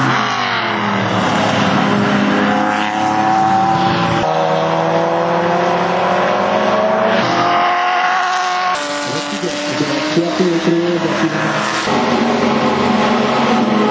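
Racing car engines revving and accelerating, the pitch climbing and dropping with gear changes, the sound changing abruptly several times from one car to the next.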